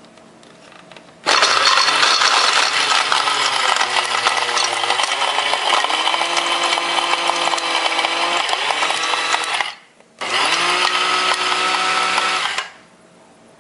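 Chef Pro CPG501 wet and dry grinder's 350-watt motor running, grinding food in its stainless steel cup. The first run lasts about eight seconds, its whine dropping and settling partway through. After a brief stop the motor runs again for about two and a half seconds.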